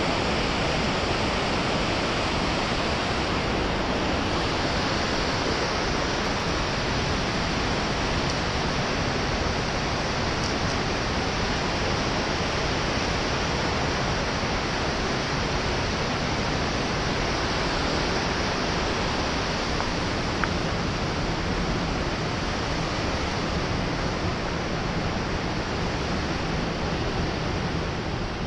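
Steady rushing of a mountain torrent, water pouring over small cascades into a pool.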